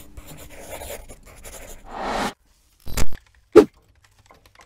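Sound effects of an animated logo ident: a faint scratchy rustle, a whoosh that swells and cuts off about two seconds in, then two short sharp hits about half a second apart.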